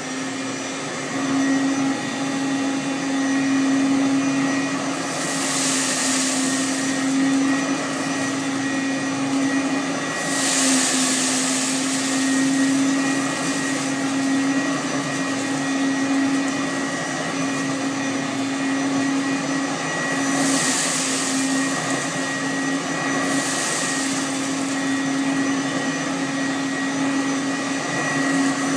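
Hoover U7071 commercial upright vacuum cleaner running, a steady motor hum and whine with a rush of air. It comes up to speed just at the start, and the rush of air grows louder several times.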